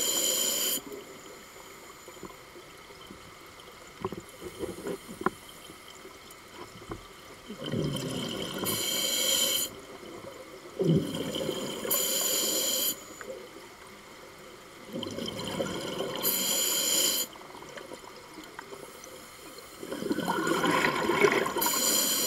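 Scuba diver breathing through a regulator underwater: a gushing rush of exhaled bubbles five times, every three to five seconds, each lasting one to two seconds. Quieter stretches lie between the exhalations.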